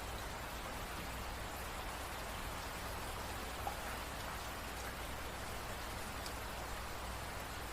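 Steady rain falling, an even patter with a few separate drops ticking out now and then.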